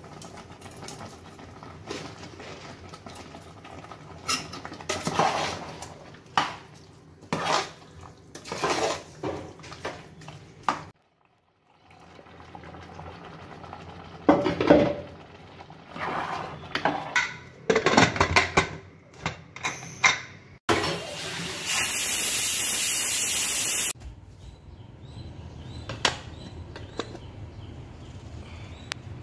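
A metal spoon stirring thick chicken curry in an aluminium pressure cooker, scraping and clinking against the pot in irregular strokes. Near the end comes a loud steady hiss lasting about two seconds that cuts off suddenly.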